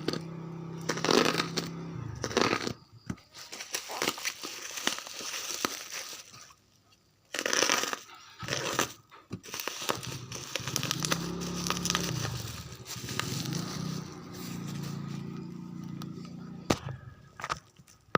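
Packaging of a new phone being handled: crinkling and crackling of plastic and cardboard, with scattered sharp clicks and taps and a brief pause in the middle.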